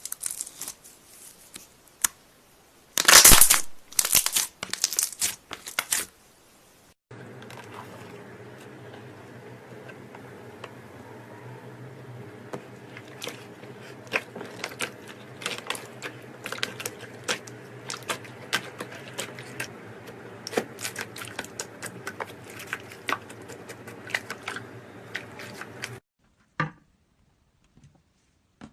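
Slime being squeezed and poked, crackling and crunching, loudest about three seconds in. After a cut it gives many quick sticky clicks and pops over a steady low hum.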